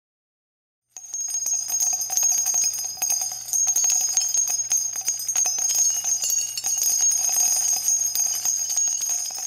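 Many small bells jingling and ringing continuously, a dense run of quick strikes under a high ringing, starting about a second in.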